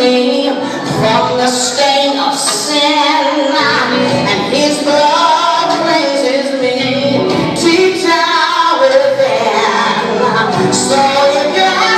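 Recorded gospel song playing loudly, with singing voices over the music.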